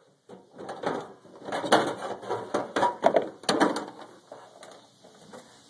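Clattering, knocking and rubbing as the hood of a Craftsman LT1000 lawn tractor is lifted off, with the phone handled close to it. The noise comes in irregular bursts over the first four seconds, then quietens.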